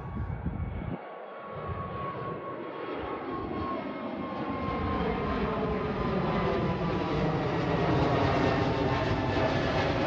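Jet engines of a Swiss Airbus airliner climbing out after takeoff and passing overhead. It grows steadily louder, with several whining tones sliding down in pitch as it goes over.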